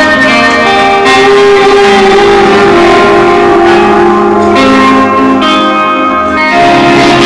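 Live rock band playing loudly: electric guitars with ringing, held notes whose chords change every second or so.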